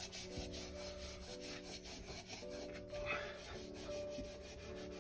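Polishing cloth rubbed by hand over a metal part coated in polishing paste, in quick, even strokes several times a second.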